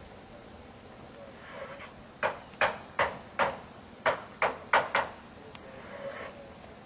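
Eight sharp knocks in about three seconds, in two groups of four with a short pause between.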